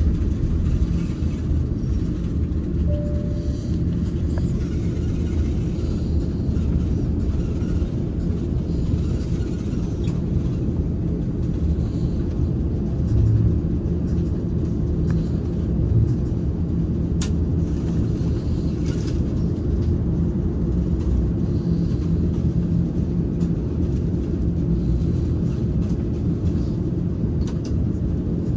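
Steady low rumble inside the cabin of an Airbus A330-900neo taxiing, its Rolls-Royce Trent 7000 engines at low thrust, heard from a window seat. A short faint tone sounds about three seconds in.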